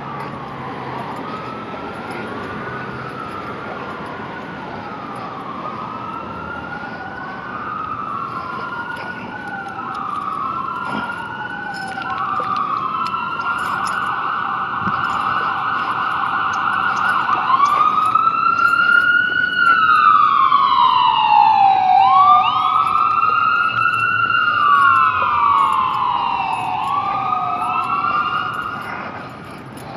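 Emergency vehicle siren wailing, its pitch sweeping up and down every second or two, with a high steady note held for a few seconds about halfway through. It grows louder toward the middle and drops away just before the end.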